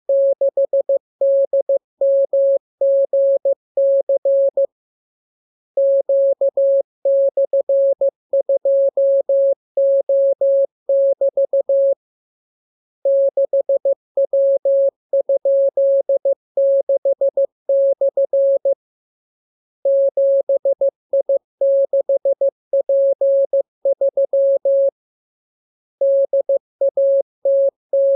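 Morse code (CW) sent as a single steady mid-pitched beep, keyed in quick dots and dashes, in groups of characters separated by pauses of about a second: a practice radiogram for learning to copy Morse by ear.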